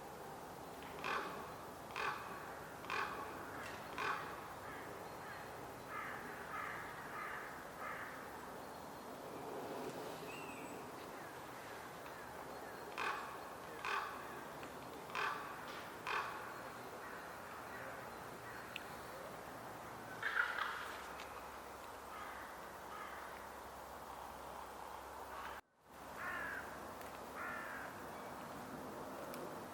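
Ravens calling: short caws at about one a second, in runs of four or five with pauses between, over a faint steady background hiss.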